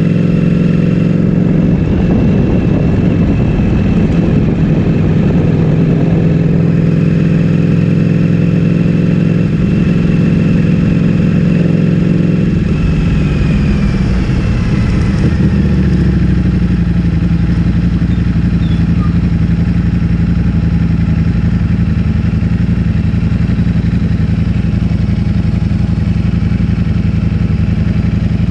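Ducati Streetfighter V4S V4 engine breathing through an Akrapovic full-system exhaust, running at a steady, even note with little change in revs and a slight shift in the note about halfway through.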